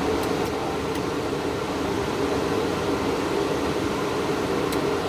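Steady whirring of a cooling fan, with a few faint clicks, three in the first second and one near the end.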